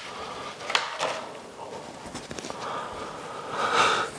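Handling noise from a thin foam dry box pad being lifted and carried: a sharp knock about a second in, then a louder rustle near the end.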